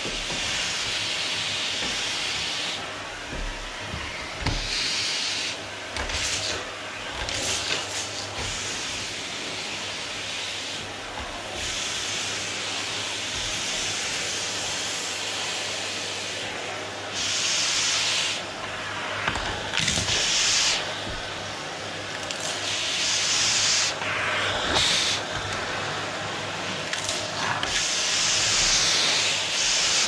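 Canister vacuum cleaner running, its suction hiss swelling and fading every few seconds as the floor brush is pushed back and forth over the wooden floor, with a few short low knocks.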